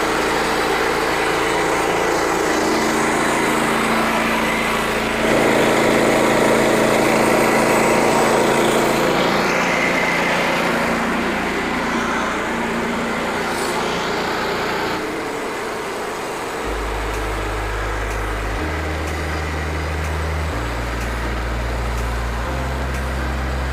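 Portable band sawmill running on its small gasoline engine, most likely with the band blade sawing through a pine log for boards. The sound steps up in level about five seconds in and eases off again around fifteen seconds.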